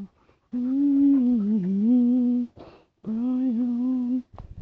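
A person humming two long, wavering notes in a low, crooning voice: the first lasts about two seconds, and the second, after a short pause, about a second.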